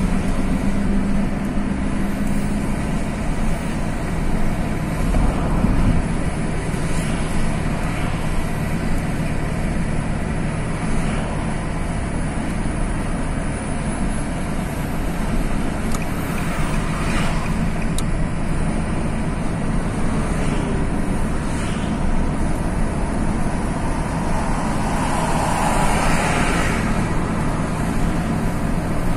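Steady engine and tyre noise of a car driving on a highway, heard from inside the cabin. Two brief louder swells, about halfway and near the end, come as other vehicles pass close by.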